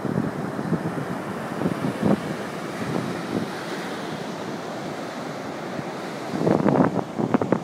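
Ocean surf breaking and washing up the beach as a steady rush. From about six and a half seconds in, wind buffets the microphone in loud, uneven gusts.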